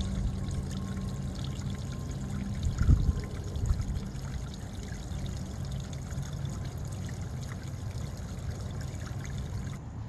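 Water trickling and pouring over a small stacked-stone waterfall into a shallow rock-lined pond, a steady splashing that stops abruptly near the end. A brief low bump about three seconds in is the loudest moment.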